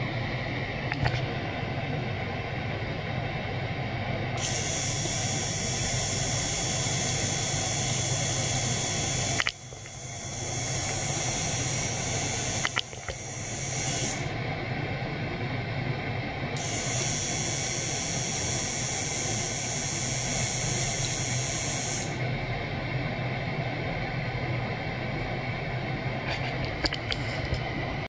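Small electric pump running steadily with a low hum as it circulates water through tubing into an ultrasonic tank. A high hiss cuts in about four seconds in, breaks off briefly twice, stops, returns and stops again near the end.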